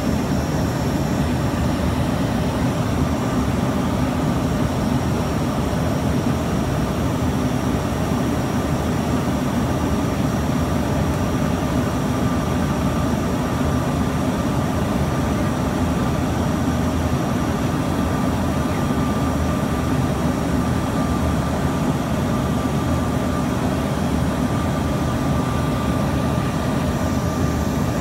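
Cabin noise of an Embraer ERJ-145 regional jet in its climb after takeoff: the steady rush of its rear-mounted Rolls-Royce AE 3007 turbofans and airflow, with a thin steady whine over it.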